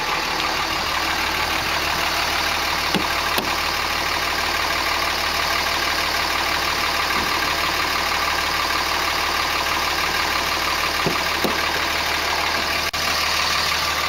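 All-stock 2004 Dodge Ram's 5.9-litre common-rail Cummins inline-six turbo diesel idling steadily through its stock exhaust; the engine is not yet warmed up. A few light clicks, and a sharp click near the end as a door is opened.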